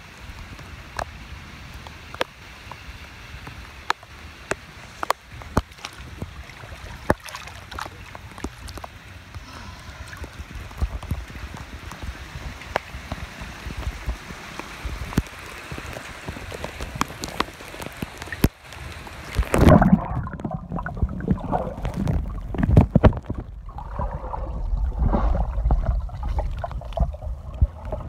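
Rain falling on a swimming pool, a steady hiss with many individual drop taps, picked up by an iPhone's microphone. About two-thirds of the way through, the phone is plunged underwater and the sound turns suddenly muffled into low sloshing and gurgling.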